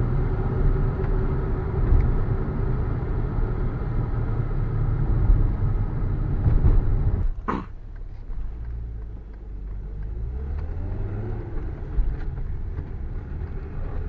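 BMW E34 heard from inside the cabin while driving: steady engine and road rumble. About halfway there is a brief sharp sound, then it goes quieter and the engine note rises slowly as the car pulls away again.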